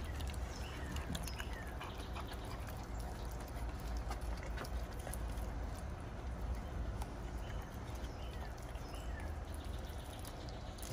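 Pit bull puppy gnawing and chewing on a raw chicken wing, giving scattered wet clicks and crunches, over a steady low rumble.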